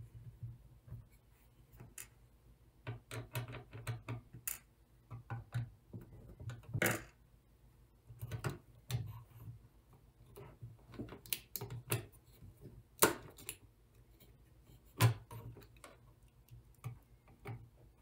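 Irregular light clicks, taps and scrapes of a screwdriver and small metal parts being worked inside an opened Dell Wyse 5060 thin client, with a few sharper knocks spread through.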